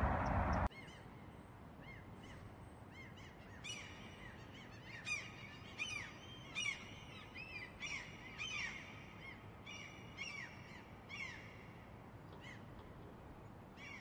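A loud steady rushing noise cuts off abruptly under a second in. Then gulls call: a run of short, arched calls, some overlapping, thickest in the middle and thinning out near the end.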